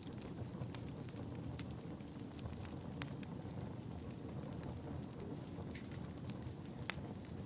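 Wood fire burning in a fireplace: a steady low rush of flame with scattered sharp crackles and pops. The loudest pops come about a second and a half in, at about three seconds, and near the end.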